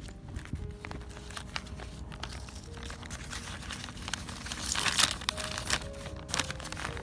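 Small clicks and crinkling, scraping noises of hand work on a phone's parts, with a louder rasping stretch about five seconds in, over quiet background music.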